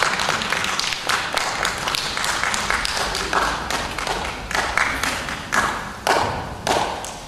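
Audience applauding, thinning out into scattered, louder single claps near the end.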